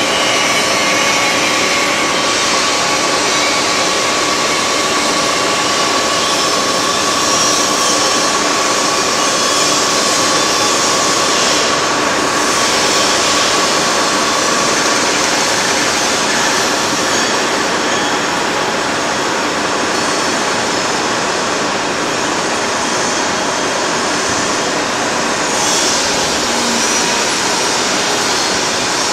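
Heavy industrial machinery running steadily, a loud even din with a thin steady whine that fades out about halfway through.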